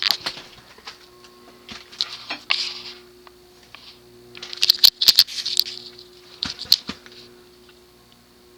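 Cast-iron spinner ceiling fan motor humming steadily at a low setting on a solid-state speed control. Over it come several bursts of rustling and clicking handling noise, the loudest from about four and a half to seven seconds in.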